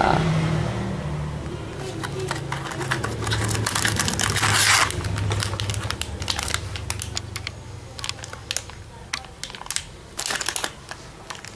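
Plastic packaging of a new HP ink cartridge crinkling as it is handled and opened. It is loudest about four to five seconds in, with a few sharp crackles near the end.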